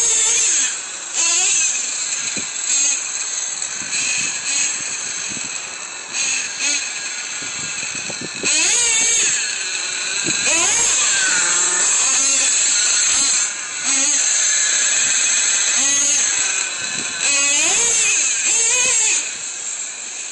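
Small nitro engine of a Traxxas Revo RC monster truck revving, a high-pitched whine that sweeps up and down over and over. Long full-throttle stretches are broken by short drops off the throttle.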